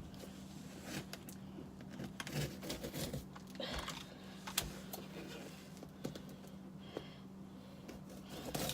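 Hands picking at and handling a shipping box and its packaging: irregular clicks, scratches and crinkling rustles, busiest in the middle, over a steady low hum.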